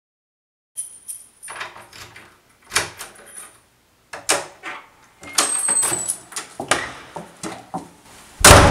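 Keys jangling and a door being unlocked and opened, starting under a second in: a run of clicks and knocks, a brief high squeak a little past halfway, and a loud thud near the end as the door shuts.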